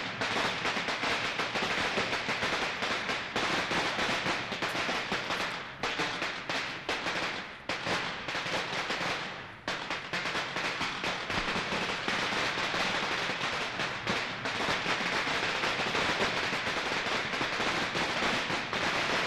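Strings of firecrackers going off, a dense, continuous rattle of rapid sharp pops, with a few brief lulls in the first half.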